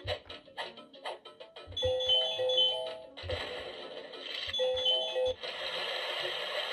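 LeapFrog Lettersaurus toy playing electronic music through its small speaker as its letter buttons are pressed: a run of drum hits, then short chime-like melody phrases and stretches of hissing noise.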